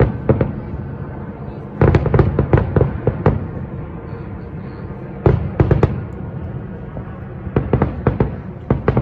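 Fireworks display: aerial shells bursting in quick clusters of sharp bangs, one group about two seconds in, another past the middle, and more near the end, over a steady low rumble.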